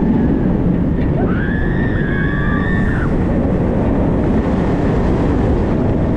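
Steady rush of wind on the microphone and the rumble of the Diamondback's train running fast on its steel track, heard from the front seat. About a second in, a rider lets out a high, drawn-out whoop lasting about two seconds.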